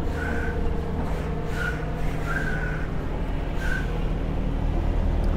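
Truck engine idling with a steady low hum, with four short, high whistle-like chirps over it.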